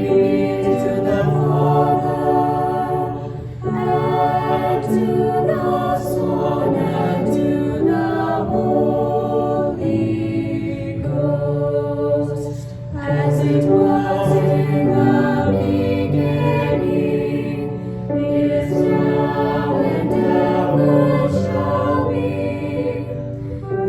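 A choir singing a slow hymn in held chords, phrase by phrase, with brief breaks between phrases.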